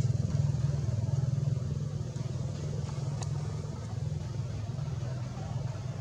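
An engine running steadily with a low hum that eases off over the first two seconds; a faint click about three seconds in.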